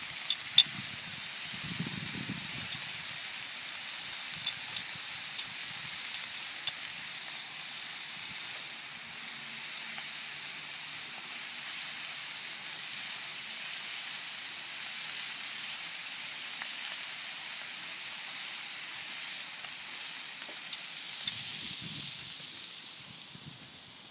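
Sausages and meat frying on a flat barbecue hotplate: a steady sizzle with a few sharp pops of spitting fat. The sizzle fades near the end.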